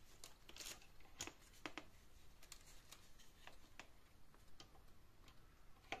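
Near silence: room tone with a few faint, irregular clicks.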